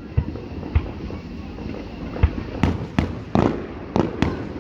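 Fireworks going off: an irregular run of about eight sharp bangs, several coming in quick succession in the second half.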